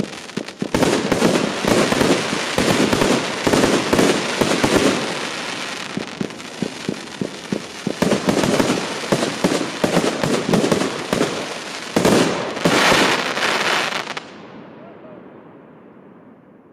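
El Gato Pirotecnia 'Happy Night' 25 mm fireworks compound firing its shots and bursts in rapid succession. The barrage stops about fourteen seconds in and the sound dies away.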